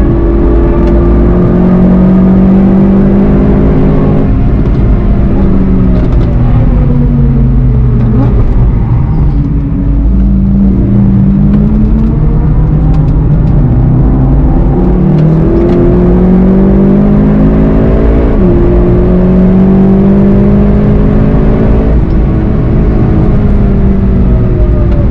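VW Golf 7.5 GTI TCR's turbocharged 2.0-litre four-cylinder engine at speed, its pitch falling as the car brakes down for a slow corner, then climbing hard again under acceleration with two quick upshifts near the end.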